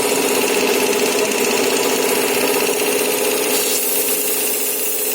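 Reciprocating air compressor on a lab test rig running steadily, a constant mechanical drone with a steady hum, while holding about 2 bar delivery pressure.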